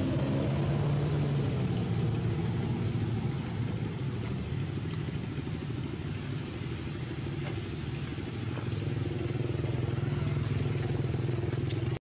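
A motor engine running steadily, its low hum drifting slightly in pitch, over a steady high hiss.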